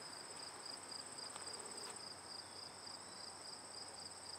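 Crickets chirping, a faint high trill pulsing fast and evenly.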